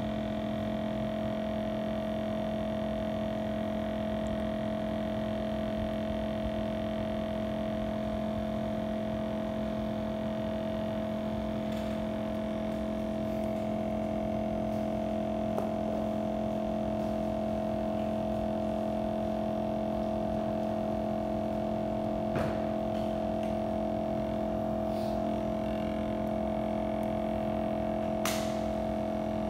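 Steady electrical hum made of several even tones, with a few faint light clicks of small tools now and then.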